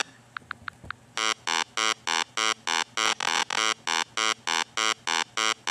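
Electronic buzzer-like tone pulsing rapidly at one steady pitch, about three to four pulses a second, after four short faint beeps at the start.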